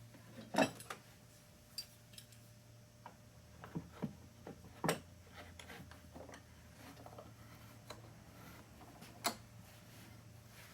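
Irregular sharp taps and knocks as thin stainless steel sheet is tapped and shifted into position on a makeshift hinge-and-clamp bending brake, about half a dozen strikes spread unevenly, over a low steady hum.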